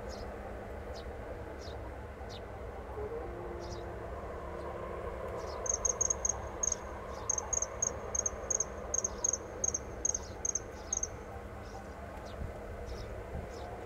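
Common kingfisher calling: a run of about twenty short, high notes at some four a second, starting about six seconds in and lasting about five seconds, over a steady low background noise.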